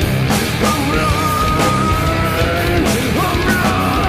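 Loud heavy rock theme music with a steady drum beat and a long, high held note that bends, in the middle.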